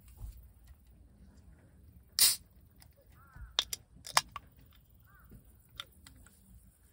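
A can of carbonated Kirin Hyoketsu lemon chuhai cracked open, with one short fizzing hiss about two seconds in, followed by a few light clicks of the tab and can.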